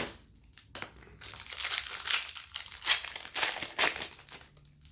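A foil trading-card pack wrapper crinkling and crackling as it is torn open and peeled back, in irregular bursts after a couple of sharp clicks.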